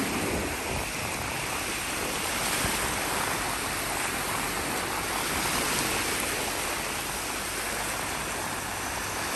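Shallow sea surf washing in and breaking into foam, a steady rush of water.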